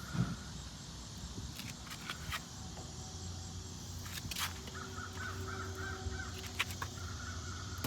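Crows cawing in short repeated runs, mostly in the second half, over a low steady hum and a few scattered clicks.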